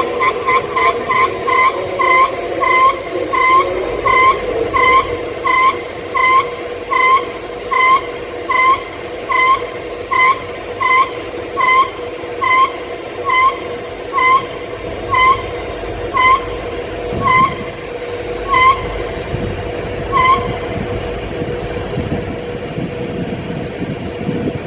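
Air compressor on a Class 334 electric train making a repeated short chirping squeak over a steady hum. The chirps come quickly at first, slow steadily, and stop about twenty seconds in, leaving the hum.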